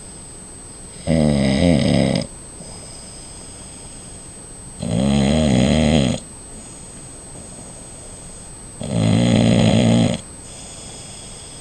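A man snoring in deep sleep: three snores about four seconds apart, each lasting over a second, with a rough, pitched rattle.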